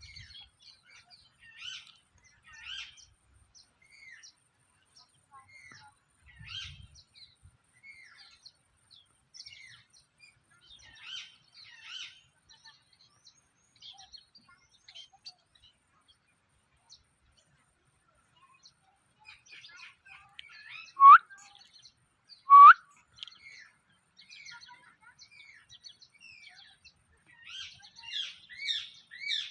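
Rose-ringed (ringneck) parakeet chirping in many short, quick calls, with a lull about halfway. Two much louder, sharp calls come a little past two-thirds through, and the chirping gets busier near the end.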